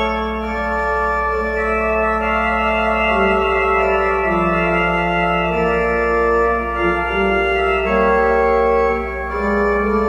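Church organ playing slow, sustained chords, the held notes changing every second or so.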